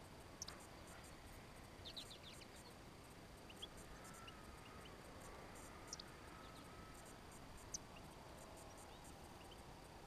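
Faint, scattered short chirps of small songbirds over a quiet steady hiss, with a quick cluster of several chirps about two seconds in.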